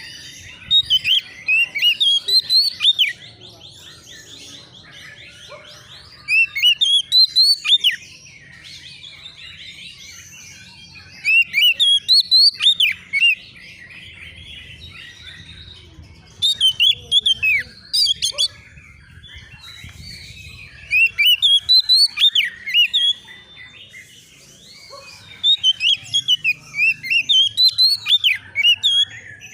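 Oriental magpie-robin (kacer) singing: six loud phrases of rapid, sweeping notes, each about two seconds long and repeated roughly every five seconds, with fainter bird chirping between them.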